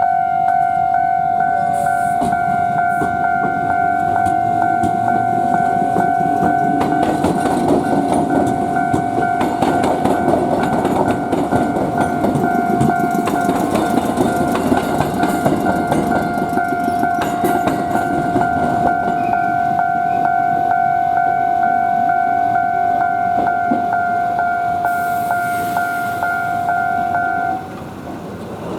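Level crossing alarm ringing on two steady pitches while Iyo Railway 700 series electric trains pass over the crossing, their wheels clattering and rumbling on the rails. The alarm stops near the end.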